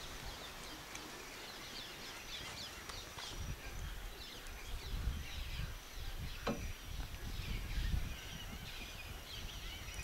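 Many small birds chirping and twittering together in a steady chorus of short calls. A low rumble on the microphone rises through the middle stretch, and there is a single click about six and a half seconds in.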